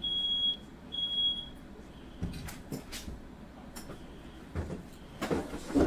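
Smoke alarm beeping in its three-beep fire pattern, with two high, steady half-second beeps in the first second and a half, then a pause; it is set off by smoke from a firework that caught fire in the room. A few knocks follow, and a short rustle near the end.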